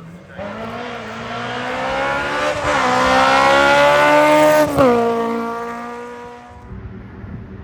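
VW Polo hillclimb race car accelerating past, its engine note climbing in pitch and growing louder for about four seconds. The pitch drops sharply with a gear change just before the five-second mark, then the engine fades as the car pulls away.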